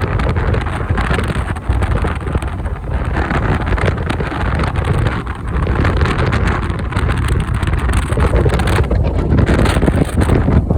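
Heavy wind buffeting the microphone on a moving motorcycle in typhoon wind, a loud, unsteady rumble over the bike's running and road noise.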